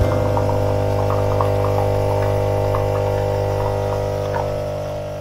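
Intro music: a sustained droning chord with short higher notes over it, fading toward the end.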